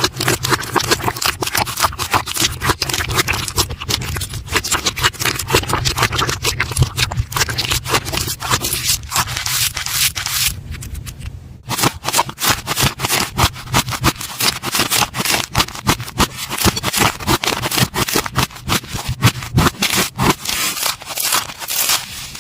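Slime being handled makes a dense run of crackling, popping clicks, with a brief let-up about halfway through.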